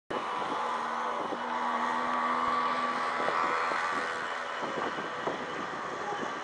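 Steady outdoor background noise, with a faint steady hum through the first half.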